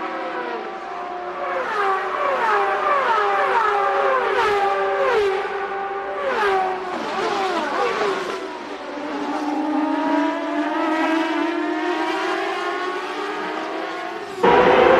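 Indy cars' high-revving racing engines screaming past, the pitch repeatedly climbing and dropping as cars go by and shift, then one engine note rising steadily as it accelerates. A sudden louder burst of engine sound near the end.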